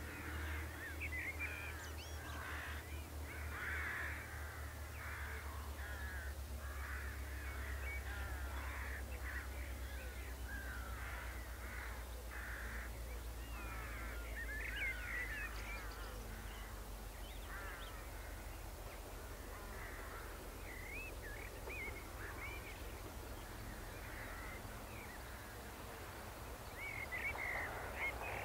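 Birds calling and singing over a low, steady rumble. Near the end the noise of an approaching diesel train starts to rise.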